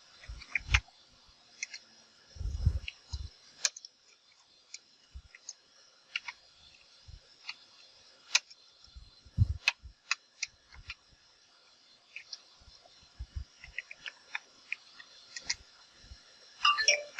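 Scattered, irregular computer keyboard keystrokes and clicks, with a quick cluster of keystrokes near the end.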